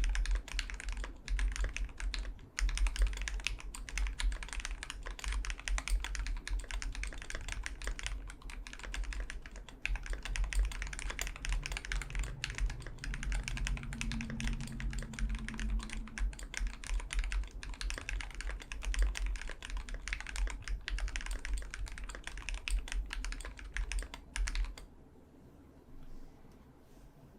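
Steady fast typing on a KBDfans D65 gasket-mounted 65% keyboard with a brass plate and Gateron Black Ink linear switches lubed with Krytox 205g0: dense keystrokes with a deep thud under each click. The typing stops near the end.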